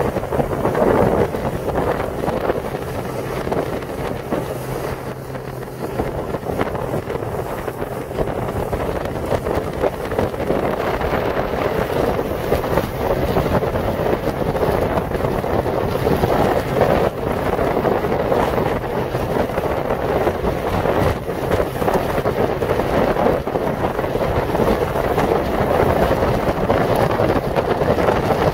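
Motorboat running at speed: wind buffeting the microphone over the steady drone of the boat's engine and the rush of water past the hull.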